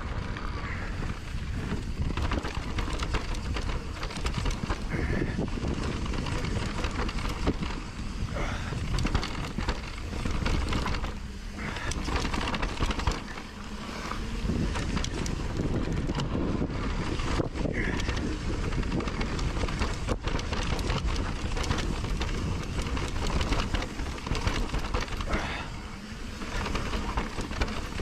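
Trek Rail 7 electric mountain bike riding down a dirt singletrack: tyres running over the trail with many small clicks and knocks from the bike rattling over bumps, under steady wind rumble on the camera's microphone.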